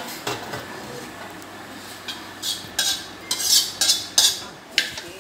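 Metal ladle scraping and clinking against a steel wok in a quick run of short strokes, mostly in the second half, as the last of the curry is scooped out.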